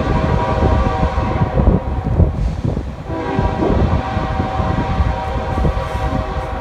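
Diesel locomotive air horn sounding several notes at once in two long blasts, the second starting about three seconds in, over the low rumble of the train.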